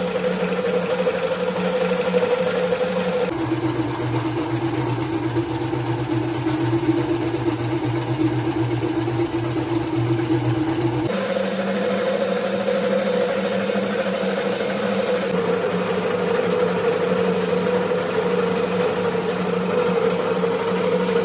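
Air spray gun hissing steadily as it coats cast-iron truck brake drums with black paint, over a steady machine hum whose pitch drops about three seconds in and rises again about eleven seconds in.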